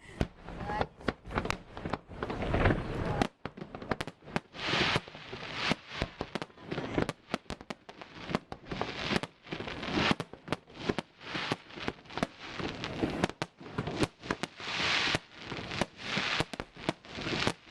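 Fireworks going off in quick succession: many sharp bangs, with stretches of crackling in between.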